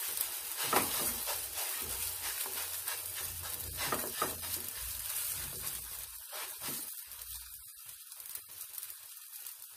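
Malawi (Moroccan layered flatbread) dough sizzling in a little hot oil in a non-stick frying pan. The sizzle is loudest in the first half, while fingers pat and press the dough flat, and weaker after that.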